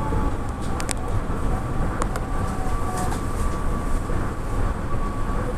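Okinawa Urban Monorail car running, heard from inside the cabin: a steady low rumble with a faint steady whine and a few light clicks about one, two and three seconds in.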